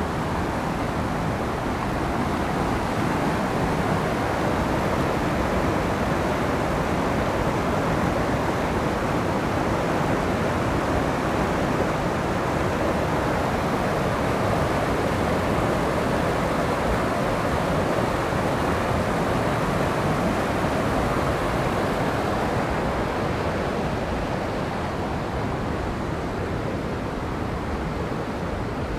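Fast-flowing mountain river rushing over rocks and rapids: a steady, dense rush of white water that grows a little quieter and duller near the end.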